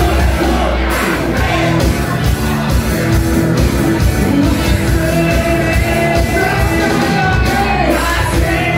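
Live rock band playing loud, with electric guitars, bass, keyboard and drums under a sung vocal line.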